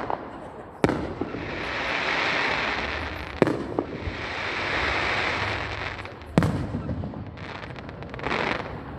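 Aerial fireworks: three sharp shell bursts about three seconds apart. After each of the first two comes a hiss that swells and fades over a couple of seconds, and a smaller burst of noise comes near the end.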